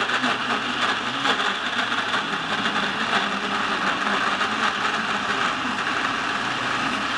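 Electric blender running steadily at high speed, grinding fresh strawberries into a purée.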